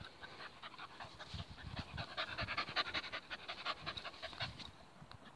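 Working cocker spaniel panting quickly and rhythmically after running, tailing off near the end.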